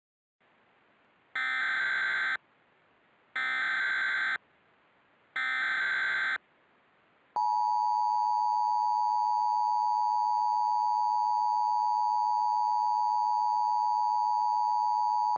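Emergency Alert System header tones: three one-second bursts of SAME data tones, each about a second apart, followed about seven seconds in by the steady two-tone EAS attention signal (853 and 960 Hz together), which marks the start of a new emergency alert.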